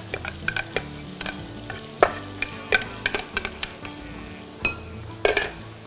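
Irregular clicks and knocks of a utensil against glass bowls as chopped grilled tomato is scraped from a small glass bowl into a large one; the sharpest knock comes about two seconds in.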